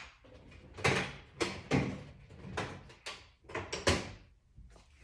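A mallet striking the power steering pump and bracket to knock a part down: about six sharp knocks, irregularly spaced, each with a short ringing tail.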